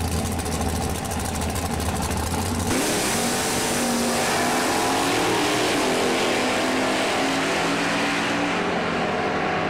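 A carbureted drag-racing V8 with a tunnel-ram intake holds a steady rumble on the starting line, then launches a little under 3 seconds in. Its note climbs in pitch as the car pulls hard away down the strip, and the sound grows duller near the end as it draws off.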